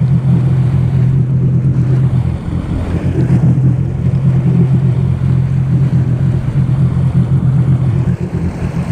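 2018 Sea-Doo RXP-X 300 jet ski running at a steady cruise, its engine a loud, even drone, with water rushing past and wind buffeting the microphone.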